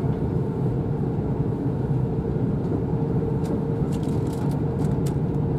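Cabin running noise of a JR East E4 series double-decker Shinkansen travelling at speed: a steady low rumble with a steady hum, and a few faint ticks past the middle.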